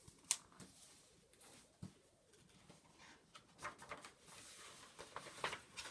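A picture book being opened and its pages turned: a sharp tap near the start, a soft thump about two seconds in, then faint paper rustling and small clicks.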